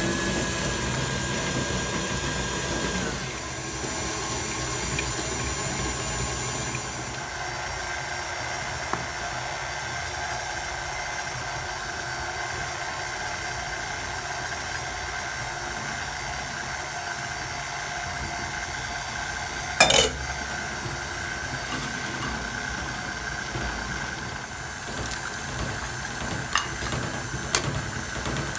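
KitchenAid Artisan stand mixer running with a steady motor whine as it beats cookie dough, a little quieter after the first few seconds. There is one sharp knock about twenty seconds in, and a few light clicks near the end.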